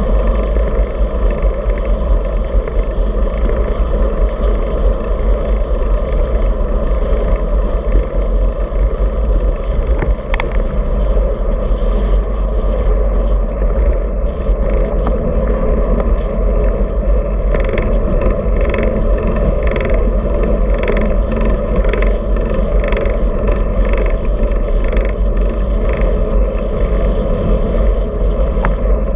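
Wind rushing over the microphone and tyres humming on asphalt from a road bike riding at speed. A single click about ten seconds in, and a run of short regular ticks, about two a second, in the second half.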